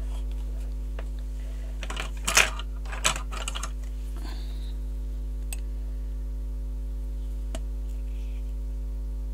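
A few small clicks and knocks of things being handled on a craft desk, loudest a couple of seconds in, over a steady low electrical hum.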